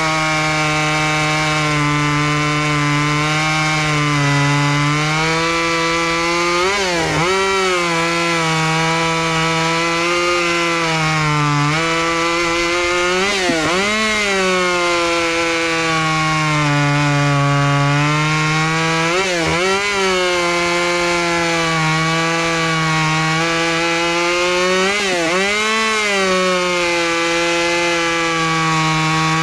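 Ported Craftsman 2.2 36cc two-stroke chainsaw with auxiliary exhaust ports, running at high revs while cutting spruce. Its steady note dips sharply in pitch and recovers about every six seconds, and starts to drop away at the end.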